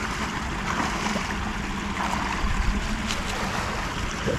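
Steady rushing of water flowing from a drainage pipe outlet into a canal, with a few faint splashes from a person wading, over a faint steady low hum.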